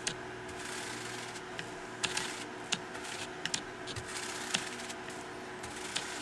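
A bristle paintbrush sweeping chips and dust across a perforated metal fixture plate: a scratchy brushing hiss broken by irregular small ticks as chips scatter.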